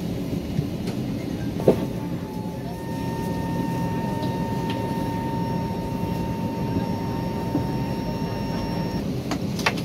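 Steady low hum of an airliner cabin parked at the gate, with a thin steady whine from about two seconds in until about a second before the end. A light click about two seconds in and a few more clicks near the end.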